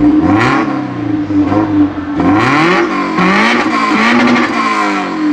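Sports car engine with an aftermarket exhaust, revved in a series of about five short blips that rise and fall over a steady idle.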